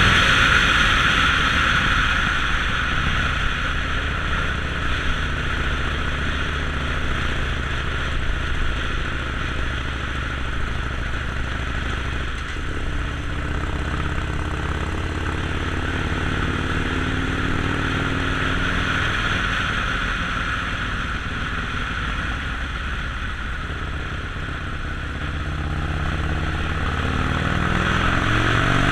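Harley-Davidson Sportster Forty-Eight's 1200 cc V-twin engine running, its pitch rising and falling with the throttle, under a steady hiss that is strongest at the start and the end.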